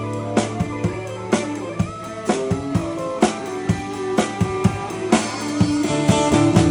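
Live rock band playing an instrumental passage: a drum kit keeps a steady beat with kick and snare hits under electric and acoustic guitars.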